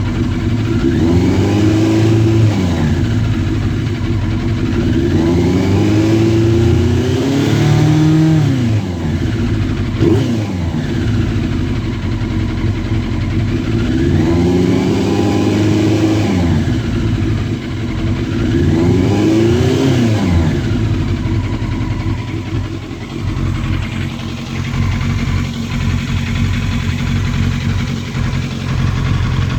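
Yamaha Fazer 600's inline four-cylinder engine blipped several times, its pitch rising and falling with each rev, then settling to an idle for the last third. The bike is running with a misfire.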